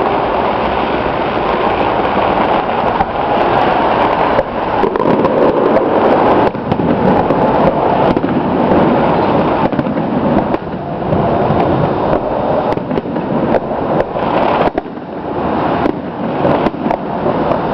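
Fireworks display: a continuous barrage of aerial shells bursting, with many overlapping bangs and a dense crackle.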